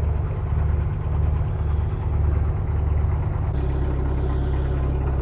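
Narrowboat's diesel engine running steadily at low revs, its note shifting slightly about three and a half seconds in.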